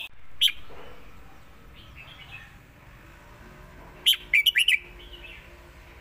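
Red-whiskered bulbul singing short phrases: one sharp note about half a second in, softer chirps after, then a quick run of sharp notes about four seconds in.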